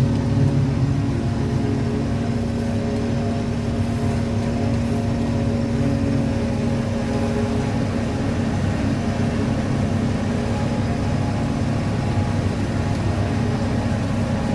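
John Deere 5830 self-propelled forage harvester, 290 hp, running steadily under load while chopping corn, heard from inside its cab as a constant engine and machinery drone.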